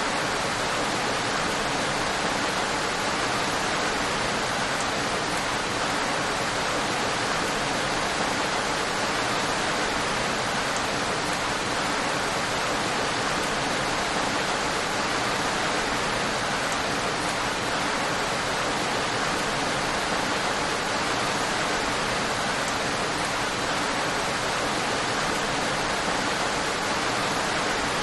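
Steady rain, a dense even hiss of falling drops with no separate drops standing out and no change in level.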